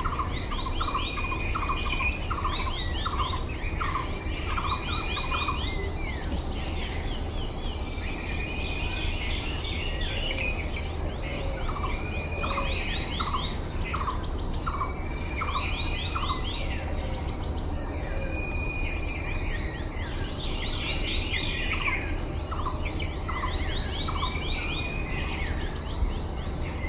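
Outdoor ambience: a steady high insect drone with birds calling over it, quick runs of short repeated notes and chirps that come back every few seconds, over a low rumble.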